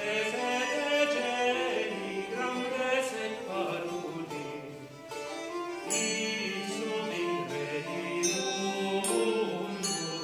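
A medieval instrumental ensemble playing live: a three-hole pipe with tabor drum, plucked lutes and a bowed vielle, with a singing voice over them and occasional sharp drum or bell strokes.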